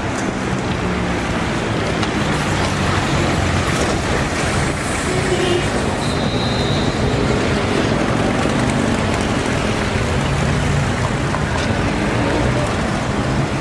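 Busy street traffic, with the engines of old 1950s American cars running and idling in a steady mix of motor noise.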